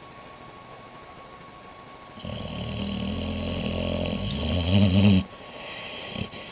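A dog snoring: one long snore about three seconds long starts about two seconds in, is loudest just before it cuts off sharply, and is followed by a fainter airy sound lasting about a second.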